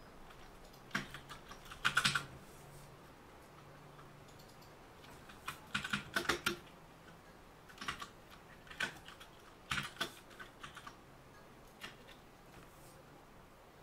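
Computer keyboard typing in short clusters of keystrokes with pauses of a second or more between them.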